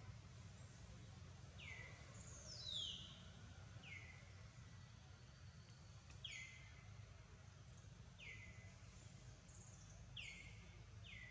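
A bird calling faintly and repeatedly: short falling whistled notes, about one every two seconds, one of them longer and starting higher a little under three seconds in. A low steady hum lies underneath.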